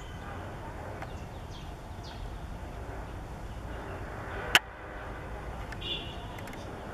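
Steady low background rumble of distant traffic, with one sharp click about four and a half seconds in and a brief short tone near six seconds.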